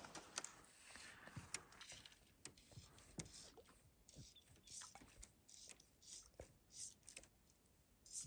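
Near silence: a still lake with faint scattered ticks and clicks.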